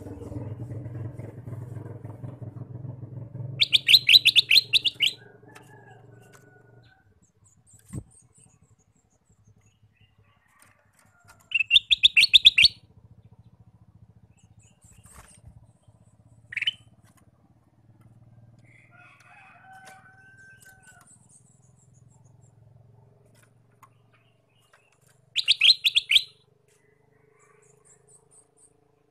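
Male ruby-throated bulbul (kutilang emas) singing: three loud, fast rattling phrases spaced several seconds apart, with a few softer whistled notes between them.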